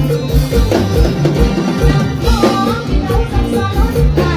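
Live luk thung band music with a fast, steady kick-drum beat. A woman's singing voice comes in about two seconds in.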